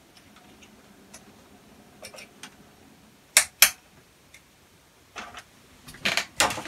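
Small sharp metallic clicks from a mains fuse holder's spring clips being worked and a 3.15 A HRC cartridge fuse being fitted: faint ticks at first, two crisp clicks a quarter of a second apart about three and a half seconds in, then a quick cluster of clicks and handling near the end.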